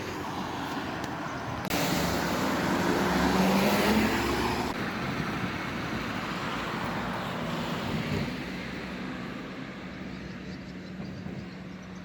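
Road traffic: a motor vehicle accelerates past with its engine note rising, loudest about four seconds in. A steady engine hum carries on underneath after it.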